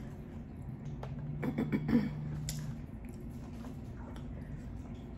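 Close-up chewing of a hard-shell beef taco: crisp crunching and mouth clicks, with a short run of louder crunches about one and a half to two seconds in.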